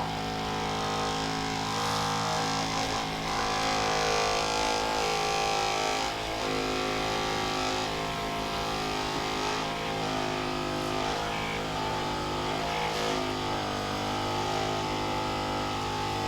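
Handheld percussion massage gun running against the hamstring, a steady motor hum with several tones whose pitch wavers as the head is pressed into the muscle.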